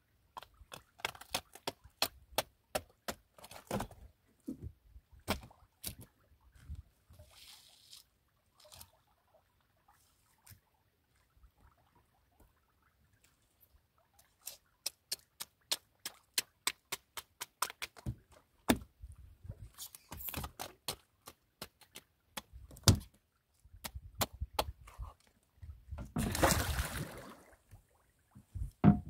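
Irregular runs of sharp clicks and knocks from cutting up a tuna on a wooden boat's plank deck, with a pause of a few seconds partway through. Near the end there is a short rushing noise about a second and a half long.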